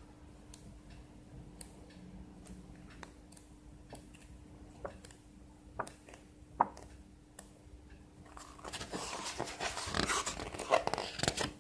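Pages of a large art book being turned by hand: scattered light clicks and ticks of paper, then a louder rustle of paper near the end as a page is turned over.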